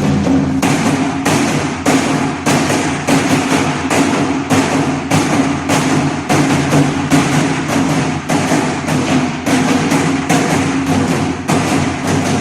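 Nanta drumming: drums struck with sticks in a steady, driving repeated pattern, the gichajangdan ('train rhythm') taught in this class, with sharp woody stick clicks among the drum hits.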